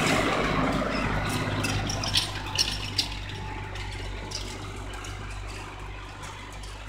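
New Holland TD80D tractor's diesel engine running steadily as it pulls a tillage implement through the soil, fading as the tractor moves away. A few light clicks and rattles come about two to three seconds in.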